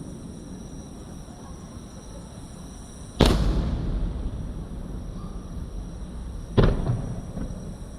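Two aerial firework shells bursting, about three seconds apart, each a sharp bang followed by a long rolling echo that fades slowly.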